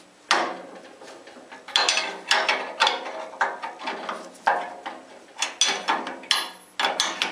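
Steel 15/16 wrenches clinking and clanking against the bolt and cast-iron frame of a 14-inch Ridgid band saw as the bolt holding the upper arm is worked loose in short strokes. It is a string of sharp metal clicks, about one every half second to second, with a longer ringing clink a little after six seconds in.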